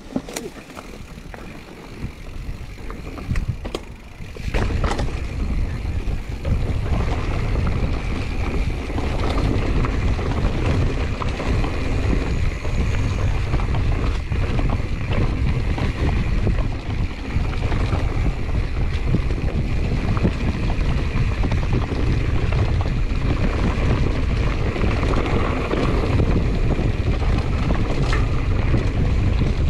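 Wind buffeting the camera microphone on a 2021 Giant Trance X 29 full-suspension mountain bike riding down a dirt singletrack, with tyre rumble and small clicks and rattles from the bike. The low rumble gets much louder about four seconds in and stays loud.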